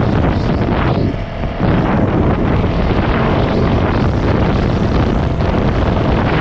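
450cc dirt bike engine running under way, with wind buffeting the microphone; the sound dips briefly about a second in, then picks up again.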